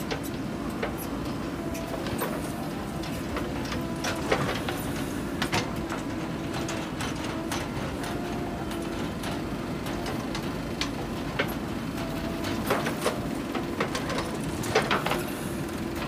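Diesel engines of a JCB 3DX backhoe loader and farm tractors running steadily, with scattered metal knocks and clanks as the backhoe bucket digs into soil, sharpest about four seconds in and in a cluster near the end.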